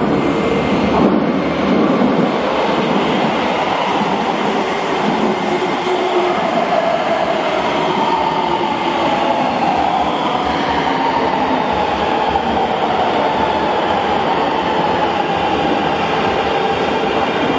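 Keikyu 1000-series electric train pulling into an underground station platform, with wheels rumbling on the rails and a faint motor whine that slowly falls in pitch as it brakes.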